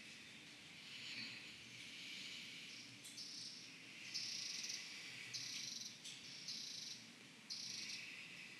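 An insect trilling in short, high-pitched pulses about once a second, starting about three seconds in, over a faint steady background hiss.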